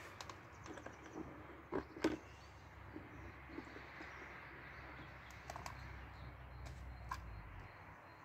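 Light clicks and knocks of an angler handling his gear and a bucket by hand, the two loudest close together about two seconds in.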